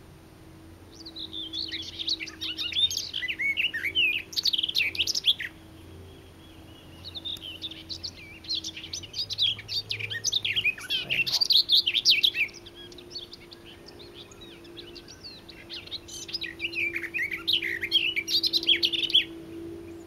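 A warbler singing three long phrases of fast, varied warbling, each several seconds long, with pauses between. The recordist takes it for a garden warbler, though it sings more eagerly and loudly than one usually does.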